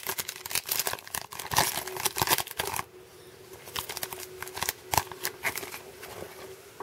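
Foil trading-card pack wrapper being torn open and crinkled, a dense crackle for about the first three seconds. Then quieter sliding and handling of the stiff chromium cards as they come out of the wrapper, with a few sharp ticks and one louder snap.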